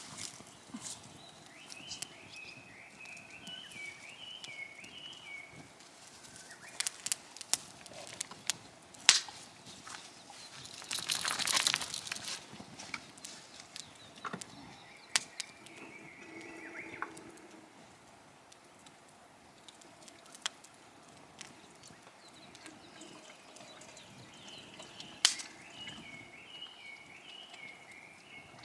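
Outdoor ambience of scattered sharp clicks and crackles, with a bird singing a short warbling phrase twice, near the start and near the end. A brief burst of rustling noise comes about halfway through.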